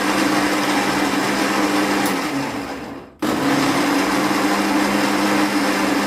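Electric kitchen mixer grinder (mixie) running, grinding a dry mix of almonds, dry dates, green cardamom, crystal sugar and liquorice root into fine powder. About two seconds in the motor runs down, and a second later it starts again at full speed.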